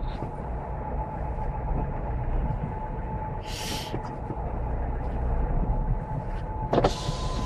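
A car driving on a snowy, slushy road, heard from inside the cabin: a steady low rumble of engine and tyres, with two short hissing swishes, one midway and one near the end.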